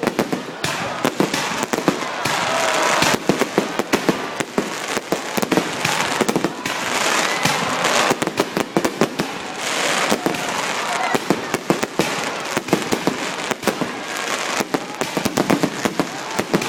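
Fireworks going off in quick succession, a dense run of sharp crackling pops, with people's voices faintly underneath.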